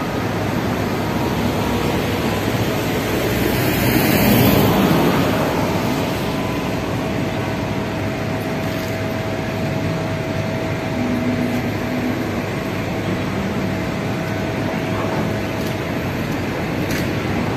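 Road traffic noise, with a vehicle passing about four seconds in and a faint steady engine hum under the middle part.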